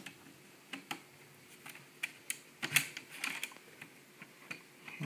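Scattered light clicks and taps of a replacement LCD panel being handled and set into a Gateway laptop's lid, with a small flurry of them around the middle.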